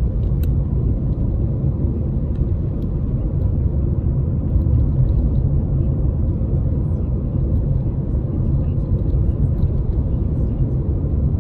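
Steady low rumble of a car driving along the road, heard from inside the cabin: engine and tyre noise while cruising.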